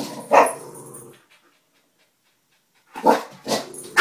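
Chihuahua barking territorially at a larger dog: a bark near the start, a silent break of about a second and a half, then two or three quick barks near the end.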